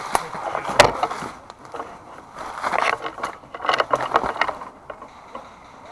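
Leaves, twigs and clothing brushing and crackling as a person pushes through woodland undergrowth, with one sharp snap about a second in and bursts of rustling a few seconds later.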